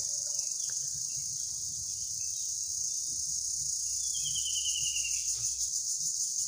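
Steady high-pitched insect chorus, a dense pulsing trill of crickets, with a short falling bird call about four seconds in.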